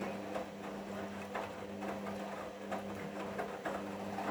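Hoover washing machine in the main wash: a steady motor hum under irregular knocks and swishes of the wet laundry tumbling in the drum.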